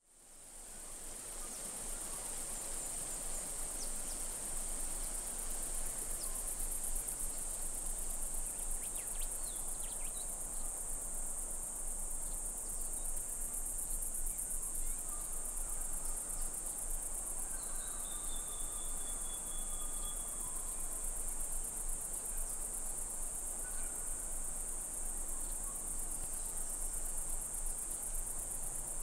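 Insects trilling in a steady, high-pitched, fast-pulsing chorus that fades in at the start.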